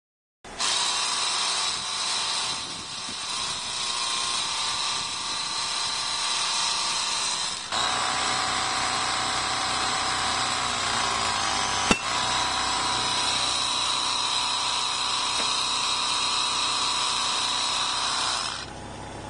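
Small portable Powerair air compressor running steadily with a high whine, pumping compressed air through a brake line into a disc brake caliper's bore to force the piston out. There is a sharp click about twelve seconds in, and the compressor drops away near the end.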